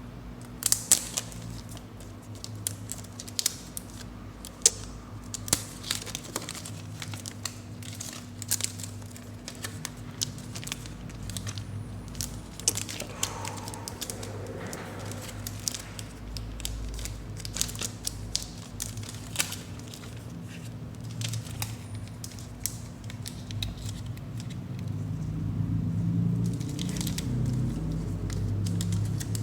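Packaging being handled during an unboxing: irregular crinkling, rustling and sharp clicks of plastic and cardboard, over a steady low hum.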